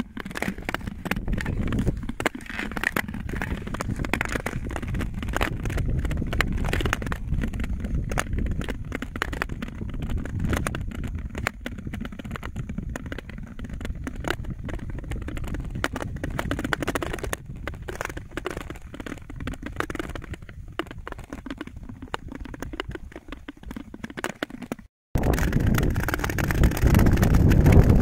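Ice skates gliding over thin black lake ice: blades hiss and scrape with many small clicks and cracks from the ice, over a low wind rumble on the microphone. The sound cuts out briefly about 25 s in and comes back louder.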